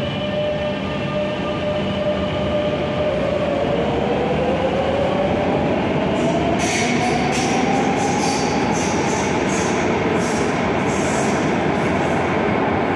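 Madrid Metro series 9000 train pulling out and accelerating. Its traction motors whine, rising slowly in pitch, over loud running noise. From about halfway through there is a quick string of short, high wheel-on-rail clacks.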